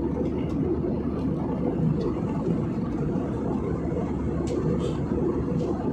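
Steady roar of engine and airflow noise heard inside a passenger jet's cabin in flight, with a few faint clicks near the end.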